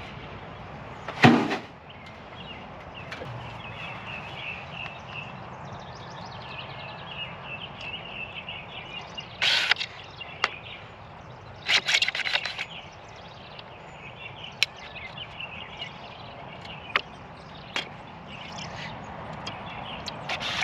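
Knocks and clatters of an old sheet-metal gutter downspout and its brackets being worked loose and taken down: one loud bang about a second in, clattering bursts around nine and twelve seconds, and sharp ticks in between. Faint chirping runs underneath.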